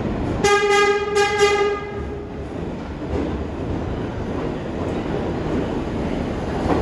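New York City Subway A train sounding its horn in several short blasts over about a second and a half, then the steady low rumble of the train rolling into the station.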